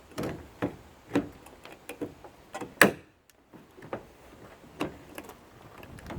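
Irregular knocks and clicks of a small electric fan motor, with its steel body and plastic parts, being handled and turned over on a workbench. The loudest knock comes a little under three seconds in.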